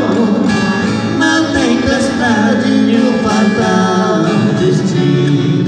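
Live música caipira duo: men singing over two acoustic guitars, amplified through PA speakers.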